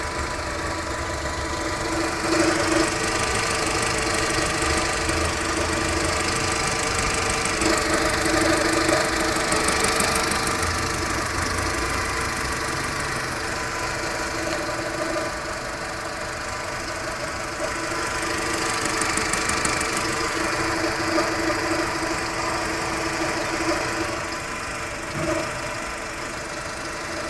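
VW Polo EA111 1.6 engine idling warm while stationary, with a low, hoarse vibration, as if something were vibrating against rubber or knocking inside a bucket with an echo. It grows louder and softer several times over a steady pulley whir. The cause is unknown to the owner: the pulleys, seals and belts have all been replaced and the noise keeps coming back.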